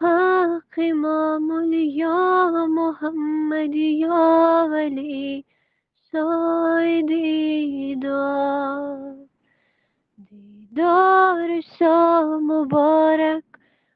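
Unaccompanied solo singing of a devotional munojot chant: a single high voice holding long, ornamented notes within a narrow range. It comes in three phrases split by short silent breaths, the longest pause coming shortly before the last phrase.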